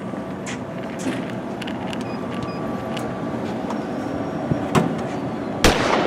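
Steady outdoor rumble with scattered light clicks and knocks, then one loud sharp clank near the end from a black metal mesh gate being handled.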